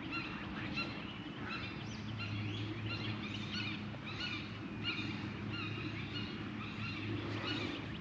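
Small birds chirping and calling over and over at the pond's edge, over a steady low hum.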